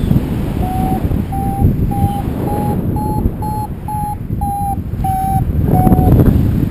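Wind buffeting the microphone in flight, with a paragliding variometer beeping about twice a second. The beeps edge up in pitch and then ease down again, the vario's tone for climbing in lift.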